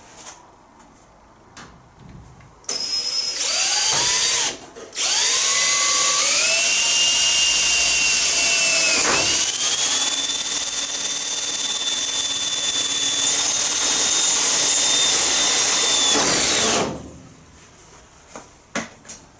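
Power drill driving screws into the steel floor pan to pull it tight. The drill runs as a whine that rises in pitch as it spins up, stops briefly, starts again, dips in pitch about halfway through as if under load, then runs steadily before winding down near the end.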